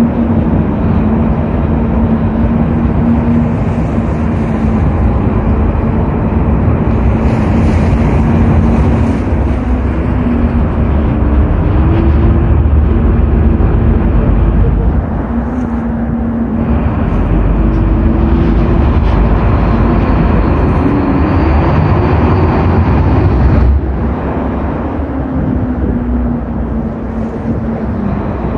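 Tour catamaran under way, its engines running in a steady drone with a constant low hum, over a continuous rushing rumble of wind and water. The sound drops a little in level near the end.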